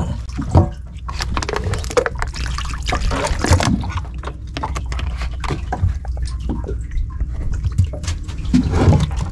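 Water splashing, pouring and dripping from an octopus trap being hauled and emptied, with irregular knocks and clatter over a low steady rumble.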